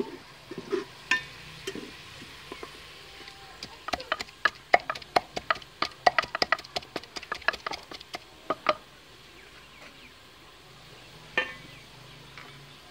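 Wooden pestle pounding in a small wooden mortar: a quick, uneven run of sharp knocks, several a second, lasting about five seconds from about four seconds in, with one more knock near the end.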